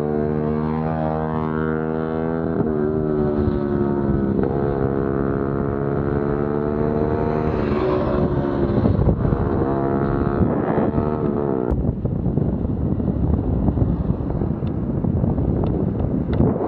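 A motor vehicle's engine running at a fairly steady pitch, which drifts a little, for about twelve seconds. After that the engine fades into rough road and wind noise buffeting the microphone.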